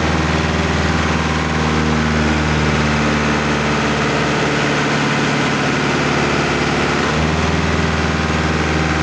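Powertrac Euro 55 tractor's diesel engine running steadily while the hand-throttle lever is worked, its speed changing about seven seconds in. The owner complains that the hand throttle won't hold a set speed and lets the engine drop back.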